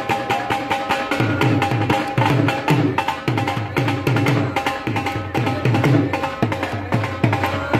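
Dance music with a steady drum beat, low drum hits landing about twice a second under a melody.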